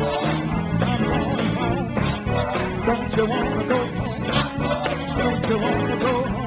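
Live gospel music: a church band plays steadily while voices sing over it, the sung notes wavering and sliding in pitch.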